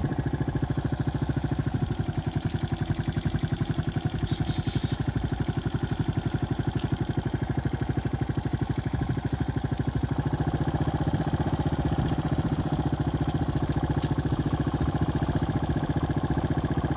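Small single-cylinder engine of a farm bike, running steadily at low revs with an even, rapid firing pulse while it follows the herd at walking pace. A short hiss sounds about four seconds in.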